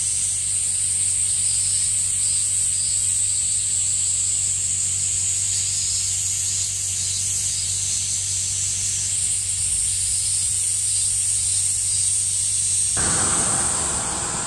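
Cicadas buzzing, a loud steady high drone with rhythmic pulsing on top. A low steady hum runs underneath and stops near the end, where a rougher noise takes over.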